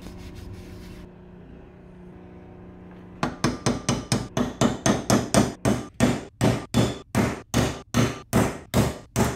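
A hammer tapping a driver held on a new main bearing, seating it in its bore in the aluminium crankcase half: a steady run of sharp metallic strikes, about three a second, starting about three seconds in. Before the strikes there is only a faint low hum.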